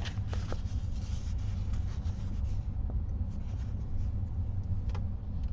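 Cross stitch kit papers and picture card handled by hand: a few faint rustles and soft taps, most of them in the first second, over a steady low hum.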